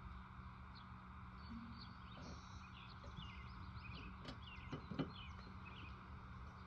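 Small birds chirping in many short falling notes over a faint steady hum, with a single light knock about five seconds in.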